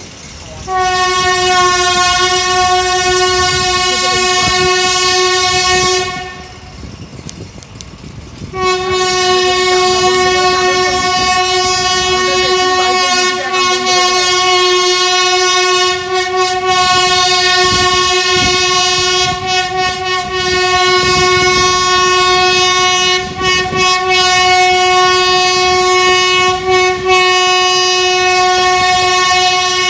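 Electric locomotive's horn blowing as the train pulls out of the station: a blast of about five seconds, then after a short break one long unbroken blast of some twenty seconds, a single steady high note.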